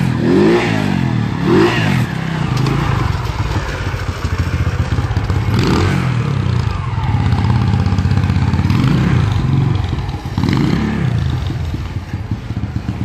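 Quad bike engine running as it is ridden, with a few quick revs in the first two seconds and another rise in pitch about ten seconds in. It grows fainter near the end as the bike moves away.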